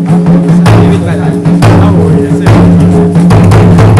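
Loud music with drumming: sharp drum strokes over a low, held bass tone, with voices in the mix.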